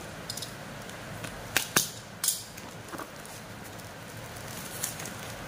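Steady hiss of rain, with a few sharp clicks between about one and a half and two and a half seconds in, and fainter ones later, as small parts are handled.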